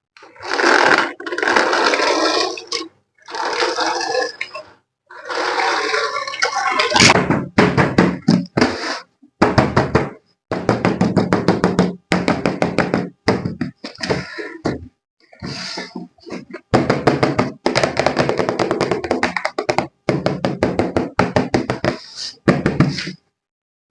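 Handling of toys and packaging: rustling for the first several seconds, then a long run of clicks and knocks, broken up by abrupt dead silences.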